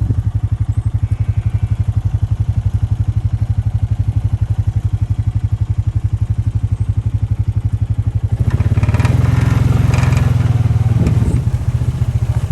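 Small vehicle engine running with a steady, rapid pulse. About eight and a half seconds in it grows louder and rougher for about three seconds, then settles back.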